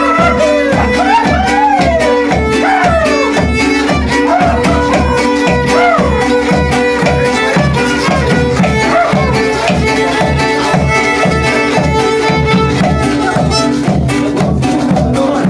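Violin and double-headed drum playing traditional Mazatec huehuentón dance music. The fiddle plays a lively, wavering melody over a steady, even drumbeat.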